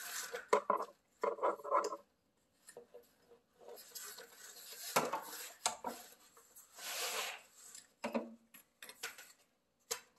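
Horizontal window-blind slats and rail clicking and clattering in irregular bursts as the blind is taken apart by hand, with a longer sliding rasp about seven seconds in.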